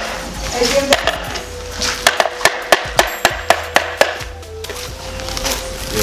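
A run of sharp wooden knocks, about four a second for roughly two seconds, from a shoeshine brush tapped on a wooden shoeshine box, over background music.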